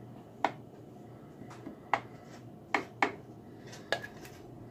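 A utensil clicking and tapping against the waffle maker's plates as batter is spread, about five sharp clicks spaced irregularly.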